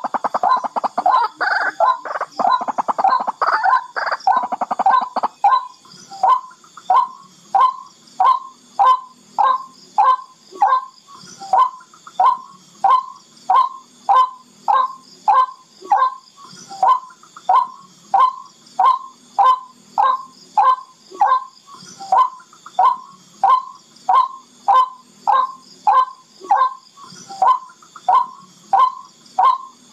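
Barred rail (tikling) calling: a fast rattling chatter for the first five seconds or so, then a steady series of short, harsh notes, about two a second. It is a recorded lure call used to draw the rail in.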